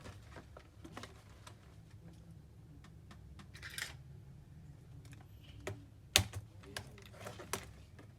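Scattered small plastic clicks and taps, with a short scrape about three and a half seconds in, from a laptop's case and keyboard being worked loose with tools during disassembly.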